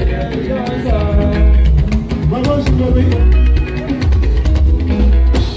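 Live juju band music: electric guitars and drums over a heavy bass line, with a voice singing.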